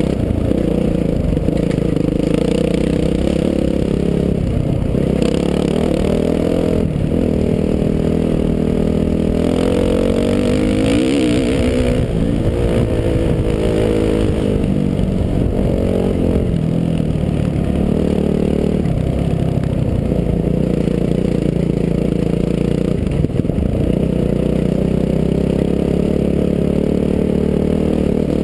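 Dirt bike engine running hard on a trail ride, its pitch climbing and dropping again and again as the throttle opens and closes, with one longer climb about ten seconds in.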